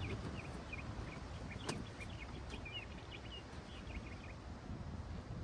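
Small birds chirping in the background, many short high chirps throughout, over a steady low rumble of outdoor noise. A single sharp click sounds about a second and a half in.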